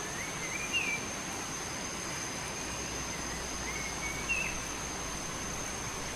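A small songbird chirping in short warbling phrases, once about half a second in and again about four seconds in, over a steady outdoor hiss and a constant thin high tone.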